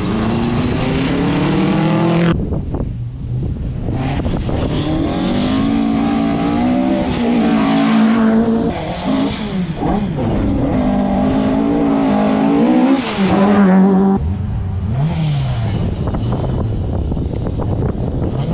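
Rally car engine revving hard through the gears, its pitch climbing in each gear and falling back at the shifts and lift-offs, with a brief lift about two seconds in and another near fourteen seconds.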